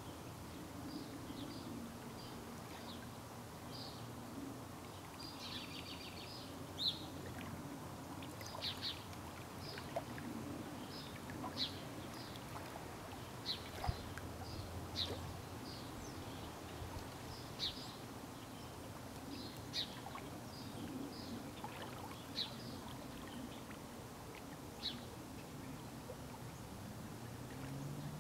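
Short high bird chirps, one or two at a time every second or so, over a steady low outdoor background rumble with small lake waves lapping.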